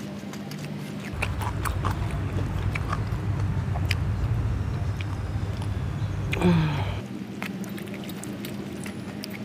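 Small clicks and smacks of someone eating rice and curry by hand and chewing, over a low rumble that starts about a second in and cuts off sharply about seven seconds in. A short tone rises and falls just before the rumble stops.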